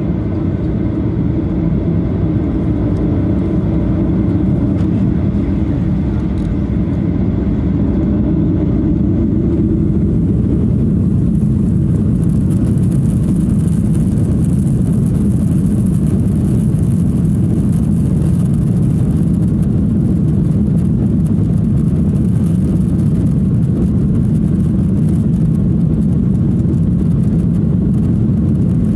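Boeing 737-800's CFM56-7B jet engines heard from inside the cabin over the wing during the takeoff roll: a loud, steady low rumble, joined about ten seconds in by a high hiss as the engines reach takeoff thrust.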